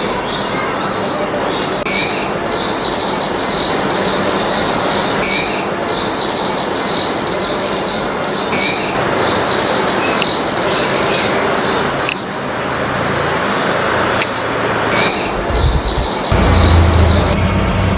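Small birds chirping and chattering in rapid high-pitched runs of a second or two, with a few short whistled notes. Near the end a low, steady engine hum from a vehicle comes in underneath.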